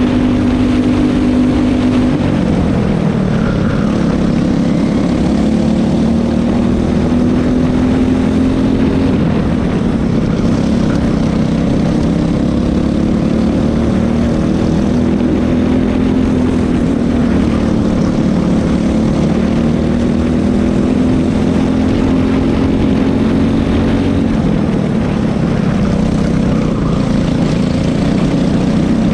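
Racing kart's single-cylinder engine under hard acceleration through a lap. It holds a high, steady pitch at first, drops about two seconds in as the kart slows for a corner, then climbs and falls again several times as it brakes and accelerates between corners.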